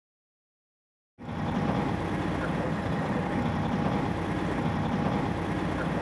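Steady road traffic noise, cutting in abruptly out of silence about a second in.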